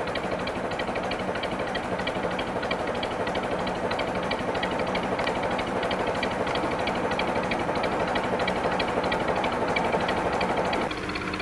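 A narrowboat's inboard diesel engine running steadily while the boat cruises, with a fast even beat. It drops a little near the end.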